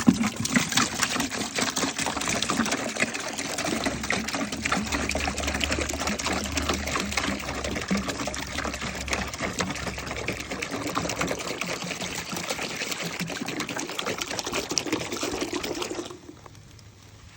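Vinegar-and-water solution being poured into a bucket: a steady splashing stream that stops about sixteen seconds in.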